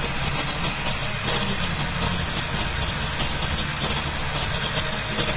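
New Holland TS115A tractor's diesel engine running steadily.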